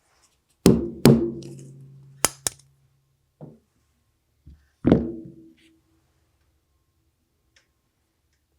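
A few hard knocks and sharp clicks. Three heavy knocks, two close together near the start and one about five seconds in, each leave a short ringing hum. Two quick clicks and a softer knock fall between them.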